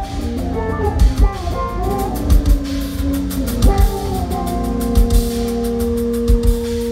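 Live band playing through a festival PA: electric bass and keyboard lines over a drum kit with a regular kick drum. About five seconds in, the moving lines settle into two long held notes under the drums.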